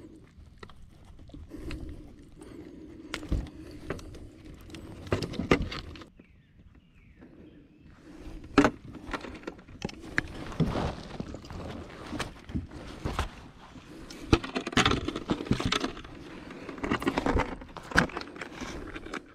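Irregular knocks, taps and rustling as a caught bass and fishing gear are handled aboard a kayak, with a brief lull a few seconds in.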